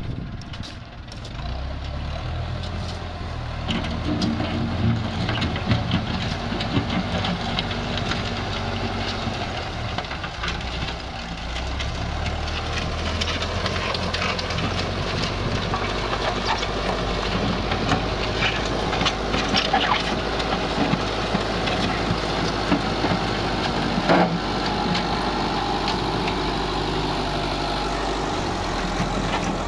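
An engine running steadily, its pitch shifting a few times, with scattered knocks and scrapes over it.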